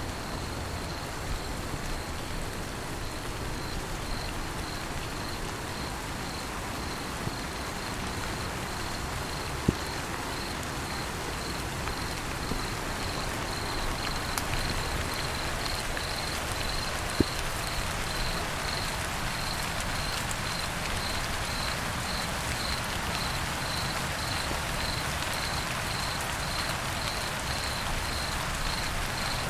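Light rain falling in a steady hiss, with crickets chirping in an even, pulsing rhythm throughout. Two single sharp ticks of drops stand out, about a third of the way in and again past the middle.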